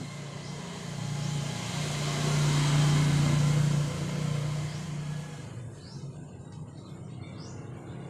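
A motor vehicle passing by, its engine sound swelling to a peak about three seconds in and then fading. A few short bird chirps come near the end.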